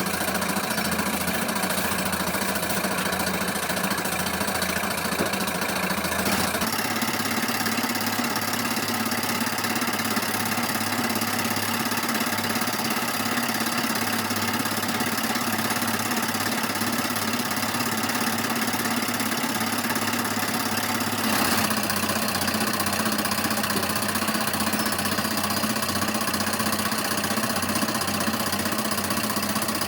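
Steady drone of running workshop machinery with several constant tones. The sound changes abruptly twice, about a third of the way in and again about two-thirds in.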